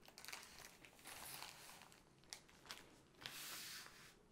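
Soft rustling and crinkling of plastic packaging as it is handled, in a few short stretches with a couple of light taps between them.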